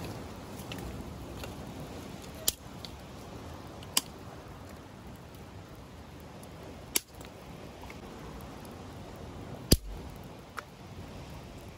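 Five sharp clicks at irregular intervals, the fourth the loudest and the last faint, over a steady low rushing noise.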